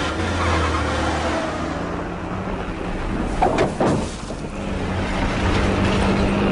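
A sedan's engine and its tyres sliding over the dirt shoulder, with two loud knocks about three and a half seconds in. After that, a heavy truck's engine runs steadily.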